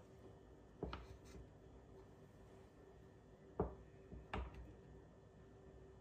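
A drinking glass and a ceramic mug set down on a wooden tray: three light knocks, one about a second in and two close together past the middle.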